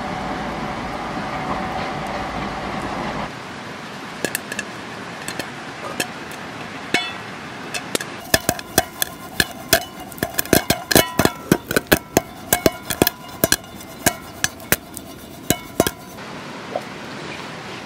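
Popcorn popping in a lidded black frying pan shaken over a campfire. After a few seconds of steady hiss, a few scattered pops grow into rapid popping for about eight seconds, which stops abruptly with one last pop.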